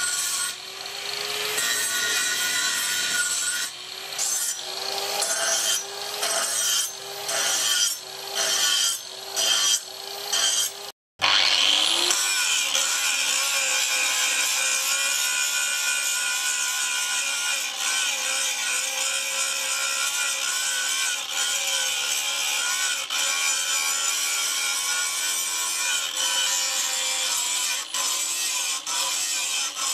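Angle grinder with an abrasive disc grinding steel. The first part comes in repeated short passes along the blade, about one a second, with the motor's pitch dipping under each pass. After a brief break about 11 seconds in, it grinds a flat steel bar in one long, steady pass.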